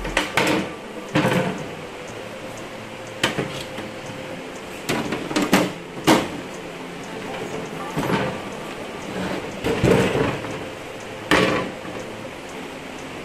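Sheet-metal side panel of a desktop computer case being fitted and slid onto the chassis: a string of metal knocks and sliding scrapes at uneven intervals.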